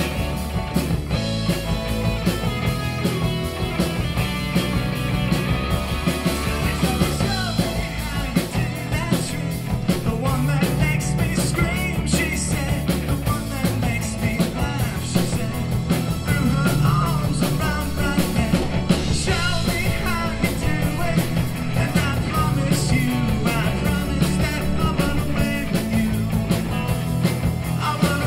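Live rock band playing through a PA: electric guitars, bass, drums and keyboard, with voices singing from about eight seconds in.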